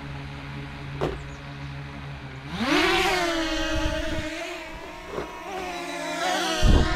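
Brushless motors of a Holy Stone HS360 quadcopter spinning at a steady low idle hum, then spinning up about two and a half seconds in to a higher, steady whine. A loud low thump comes near the end.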